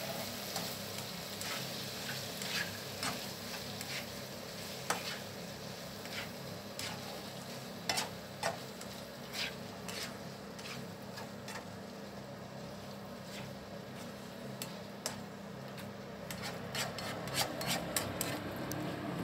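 Minced pork and vegetables sizzling steadily in a wok while a slotted spatula stirs and scrapes them, with scattered clicks of the spatula against the pan.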